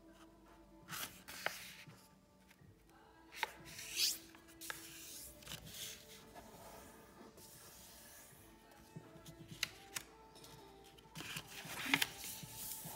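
A sheet of origami paper being folded and creased by hand, with scattered crisp paper crinkles and fingers rubbing along the folds. The strongest crinkles come about four seconds in and again near the end, over soft background music.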